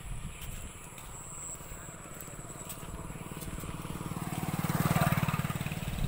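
A motorcycle passing close by: its engine grows steadily louder, peaks about five seconds in, and then drops away.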